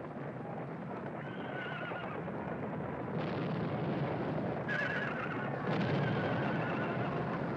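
Horses whinnying, two wavering calls about a second and nearly five seconds in, over a continuous noisy rumble.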